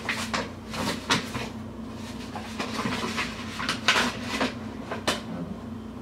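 Kitchen things being handled while baking ingredients are got ready: a string of irregular knocks, clatters and rustles, with a steady low hum underneath.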